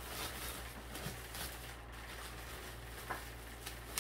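Plastic bubble-wrap packaging rustling and crinkling quietly as it is handled and pulled open, with a small click about three seconds in.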